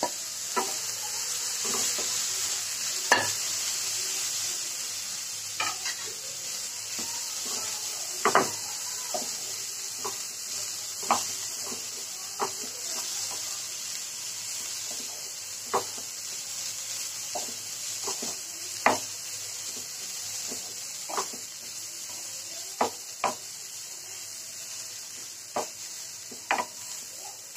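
Cauliflower and pea filling sizzling steadily in oil in a non-stick frying pan while a spatula stirs it, with irregular scrapes and taps of the spatula against the pan every second or two.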